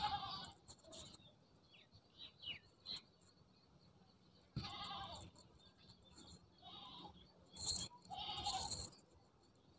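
A few faint bleating animal calls, each under a second, with a couple of short high bird chirps between them.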